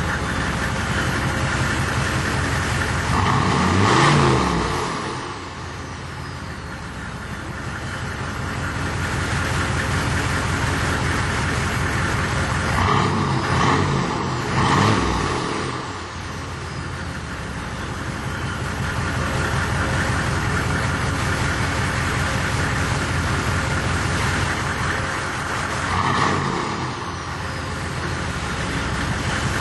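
6.5 L turbo diesel V8 through a 4-inch straight-piped exhaust, idling between quick free revs: one about four seconds in, three in a row around the middle and one near the end, each rise falling straight back to idle. A faint high whistle falls away after the revs. The engine is fully warm and puffs smoke on the revs.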